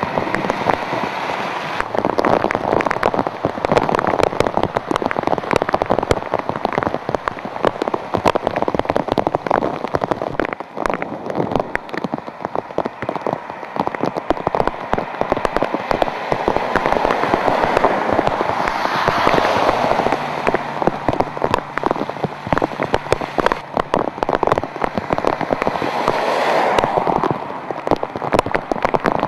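Very heavy rain pelting down, the hiss crowded with sharp crackling drop impacts close by. Now and then a passing car's tyres swish through water on the road.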